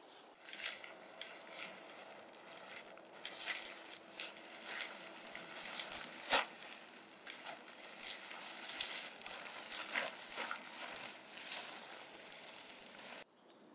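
Solognac camouflage tarp rustling and crinkling as it is shaken out and spread over a hammock ridgeline, with one sharp snap about halfway through. The sound cuts off suddenly near the end.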